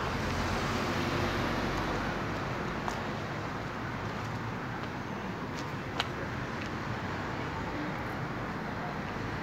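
Steady city street noise with distant road traffic, broken by a single sharp click about six seconds in.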